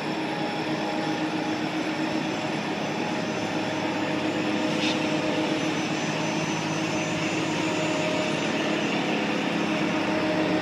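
Diesel engine of a Manitowoc 2250 crawler crane running at a steady speed, a constant even drone.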